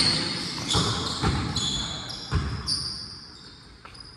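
Basketball bouncing on a gym floor in a pickup game: about four thuds in the first two and a half seconds, then it goes quieter.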